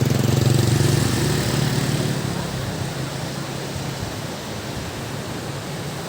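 A motor vehicle engine hums, loudest near the start and fading over the next couple of seconds, over a steady hiss.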